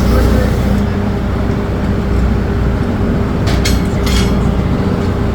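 A steady low machine drone with a steady hum. A few short, sharp noises come about three and a half to four seconds in.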